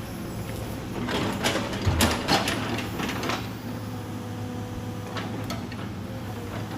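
Hydraulic excavator engine running steadily, with a cluster of knocks and clanks from the machine and the logs it is handling about one to three seconds in.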